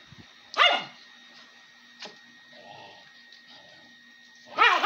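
A dog barking twice, about four seconds apart, each bark short and loud.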